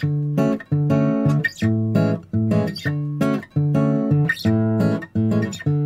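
Background music: guitar strumming chords in a steady rhythm, about two strums a second.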